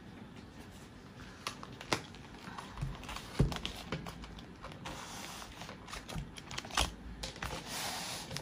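Cash binders, one with a clear plastic cover, being handled and laid on a wooden tabletop: scattered light clicks and taps, a duller thump about three and a half seconds in, and a short sliding rustle near the end.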